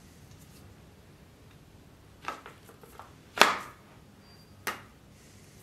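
A bowie knife being handled in its scabbard: several short, sharp clicks and knocks, the loudest about three and a half seconds in.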